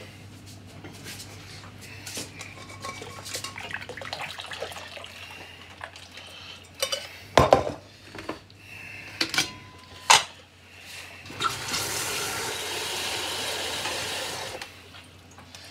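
Metal pots, lids and utensils clattering, with a few sharp knocks, then about three seconds of water pouring into a sink near the end as a pan of cooked rice is drained.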